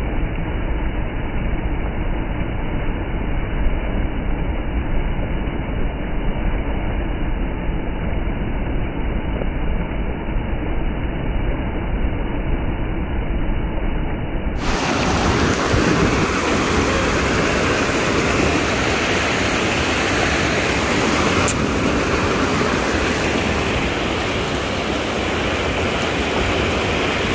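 Mahi River rapids rushing over rocks: a steady rush of white water. About halfway through, the sound turns brighter and fuller.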